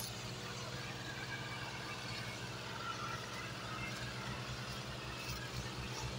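Diesel engines of New Holland farm tractors running steadily under load as they tow a heavily loaded sugarcane trolley, with an even low hum.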